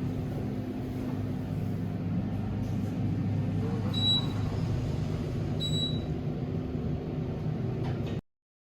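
Steady low hum and rumble of an elevator car in motion, with two short high beeps, about four and six seconds in. The sound cuts off abruptly near the end.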